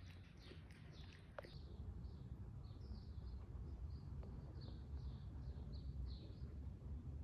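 A small bird chirping repeatedly, short high chirps about two a second, over a steady low rumble. A few light clicks come in the first second and a half.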